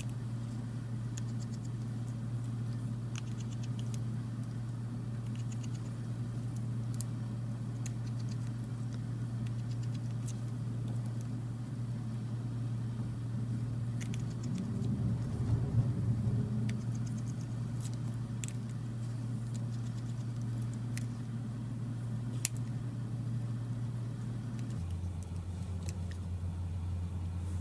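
Small faint clicks and handling noises from fitting phone parts and turning small screws with a precision screwdriver, a little louder in the middle, over a steady low hum that drops lower in pitch near the end.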